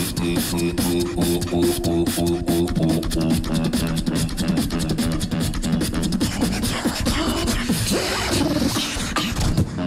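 Two beatboxers performing together: a dense, rapid beat of mouth-made kicks, snares and hi-hat clicks, with a held low bass tone under it for the first few seconds before the pitched sounds turn more shifting and varied.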